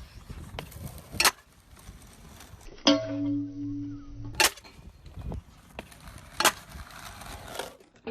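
Skateboards clacking on the ground, with sharp cracks of the board about a second in, just past four seconds and past six seconds, between stretches of wheels rolling.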